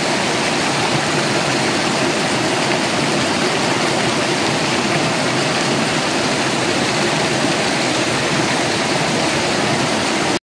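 Steady rush of a stream flowing among boulders, an even loud water noise with no change, which cuts off suddenly near the end.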